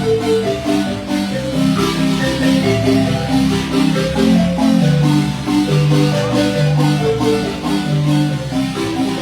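Marimba music: a son played on marimba, with a melody over a moving bass line.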